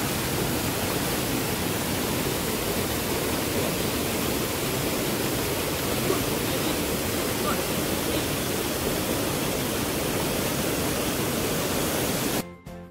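Steady rush of water from a rocky stream and small waterfall, cutting off suddenly near the end.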